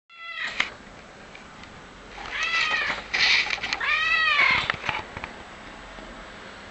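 Domestic cat meowing three times: a short meow at the very start, another about two seconds later, and a longer meow around four seconds in that rises and then falls in pitch.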